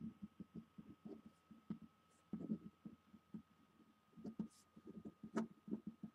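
Pen writing on paper: faint, irregular scratches and taps as words are written out in longhand.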